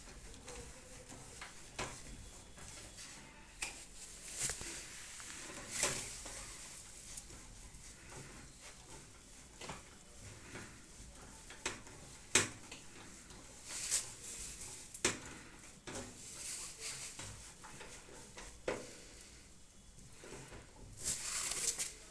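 Scattered clicks and knocks of metal parts and tools being handled while a microwave oven's sheet-metal body is fitted and screwed together. The sharpest knock comes about twelve seconds in, and a short scraping rustle comes near the end.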